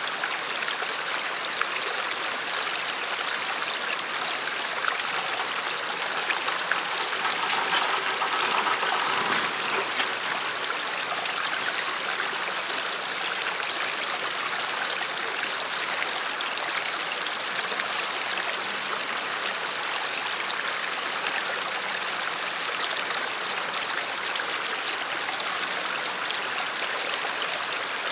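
Shallow creek running and trickling over rocks and ice, a steady rushing with no let-up.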